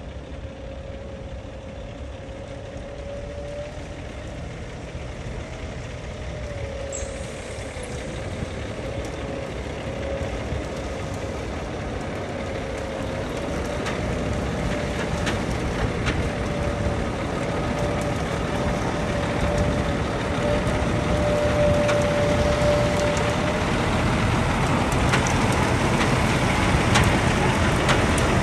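Diesel ready-mix concrete truck approaching, its engine running and getting steadily louder as it comes closer, with a steady whine under the rumble.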